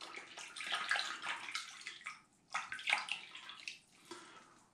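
Tap water running into a bathroom sink as a razor is rinsed under it, in two spells of about two seconds each with a short break between.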